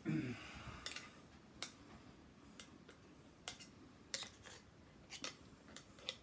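Sharp, irregular clicks of a screwdriver tip against a freshly pressed thin stainless-steel end cap, about ten in all, after a brief rustle of handling at the start.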